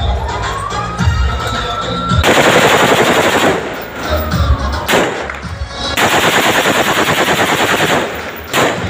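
Celebratory automatic rifle fire into the air: two long bursts of rapid fire, the first about two seconds in and the second about six seconds in, with a few single shots between and after. Music plays underneath.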